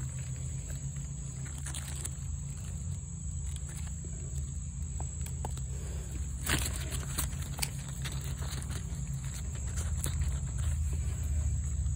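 Light rustling and tapping of vine leaves and a hanging gourd being handled, with a sharper cluster of taps about six and a half seconds in. Under it run a steady low rumble and a constant thin high whine.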